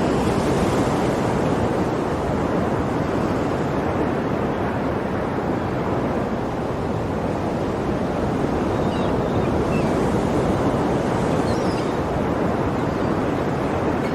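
Ocean surf: a steady, continuous wash of waves, slightly brighter in the first second or so.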